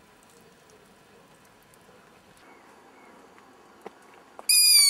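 Owl chick screaming: one loud, high, squealing call that slides slightly down in pitch, starting just before the end. Before it there are only a few seconds of faint background with a couple of soft ticks.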